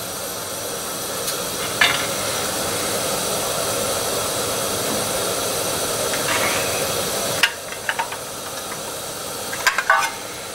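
Gas canister stove burner hissing steadily under a mess tin of water heating towards the boil, with a few light clicks and knocks. The hiss drops noticeably about seven seconds in.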